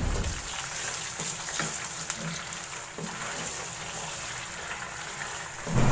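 Mutton pieces sizzling in hot oil with fried onions, stirred with a wooden spatula that knocks against the pan now and then.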